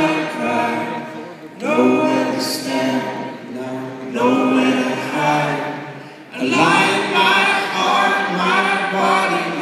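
A group of voices singing together, largely unaccompanied, in phrases of about two seconds with brief breaks between them.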